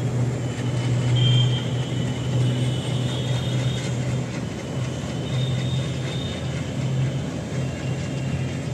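Steady low rumble of a train carrying rails and track machines as it crosses a steel truss railway bridge.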